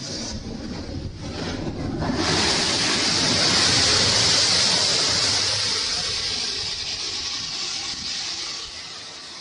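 A strong gust of wind: a loud rushing noise that swells about two seconds in, holds, then dies down near the end.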